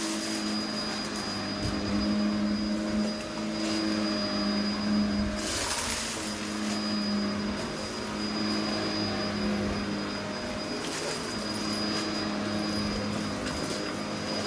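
Vacmaster Captura vacuum cleaner running steadily with a motor hum and a faint high whine, with two brief rushes of hissing noise, about five and eleven seconds in.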